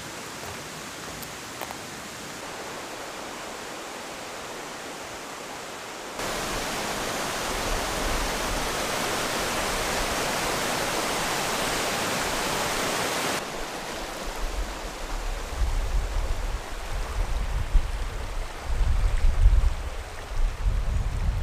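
Steady outdoor rushing noise with no pitch to it, which jumps louder at a cut about six seconds in and drops back about seven seconds later. Over the last seven seconds a low rumble comes and goes in gusts.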